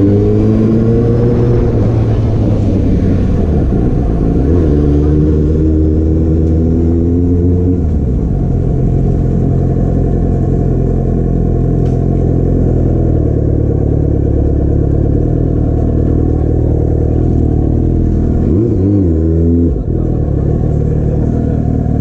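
Yamaha FZ6's 600cc inline-four engine heard from the rider's seat while riding slowly through town, its revs rising twice in the first eight seconds as it pulls away in low gear, then running steadily at low revs. A short rev rises and falls near the end before it settles back to a steady low drone.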